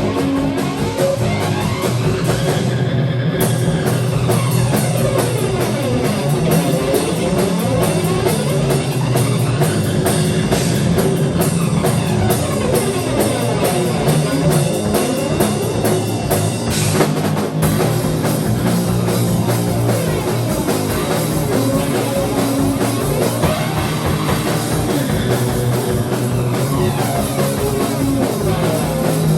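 Improvised instrumental rock jam: a drum kit playing a busy, driving beat under electric guitar, loud and without a break.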